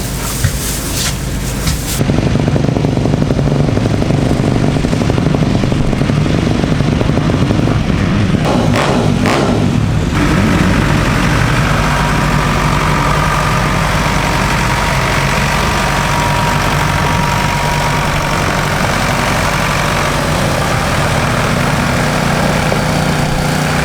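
Engine noise running steadily, starting abruptly about two seconds in, with a brief rougher stretch near the middle.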